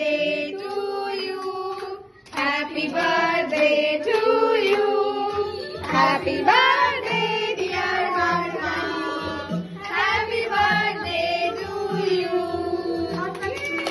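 A song with singing. The sound drops out briefly about two seconds in, and a steady beat of about two pulses a second joins around halfway through.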